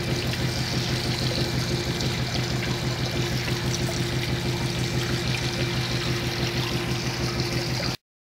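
A concentrating (shaking) table running as it separates ground circuit-board copper: water trickles and pours from the feed launder across the riffled deck over a steady mechanical hum and a fast, even pulsing. The sound cuts off abruptly near the end.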